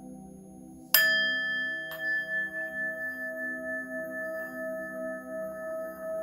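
A singing bowl is struck about a second in, then lightly hit again about a second later. It rings on with a clear, wavering tone that pulses about twice a second.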